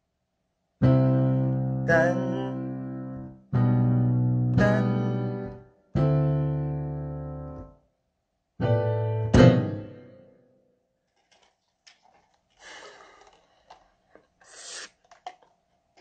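Keyboard piano played in slow block chords: four chords, each struck and left to fade, about every two and a half seconds. The playing stops about ten seconds in, leaving only faint small noises.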